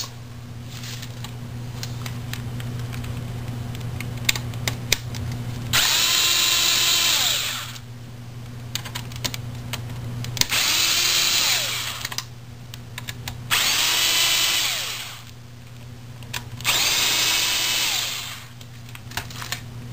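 Power drill fitted with a hollow security Torx bit, backing out the four screws that hold the router's case. It runs in four short bursts of about a second and a half, each spinning up with a rising whine. Clicks from handling the bit and screws come before the first run.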